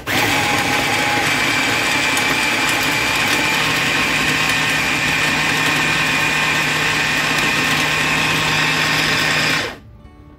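Electric mini food chopper's motor running steadily under load as it purées a wet marinade of onion, garlic and herbs, then switching off abruptly near the end.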